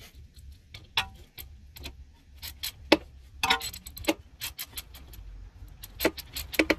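Irregular metallic clicks and clinks of a hand ratchet and socket tightening the small bracket bolts that hold the brake hose and ABS sensor wire to a front strut, with short quick runs of clicks a few seconds in and near the end.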